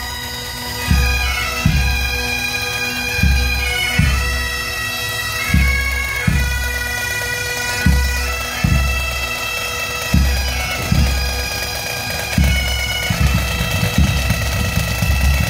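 Pipe band of Highland bagpipes and drums playing a slow tune: the pipes' steady drone under a gliding melody, with a bass drum striking in pairs throughout.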